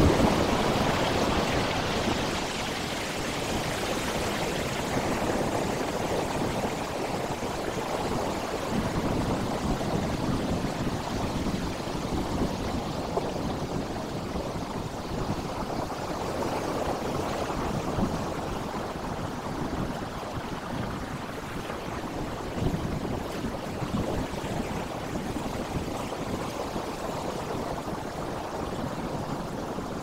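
Sea waves breaking and washing over a rocky shore. A wave crashes and splashes right at the start, then the surf settles into a steady rushing wash with smaller swells now and then.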